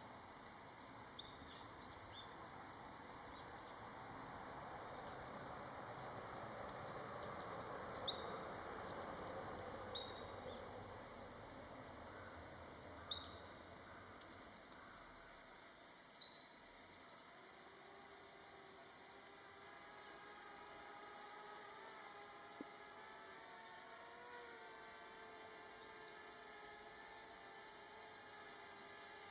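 Siberian long-tailed rosefinches giving short, high call notes. The notes come many and irregular at first, then about one a second in the second half. A soft hiss sits under the first half, and faint wavering lower tones come in about halfway through.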